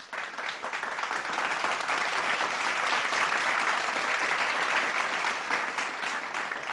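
Crowd applause, a dense steady clapping that cuts off suddenly near the end.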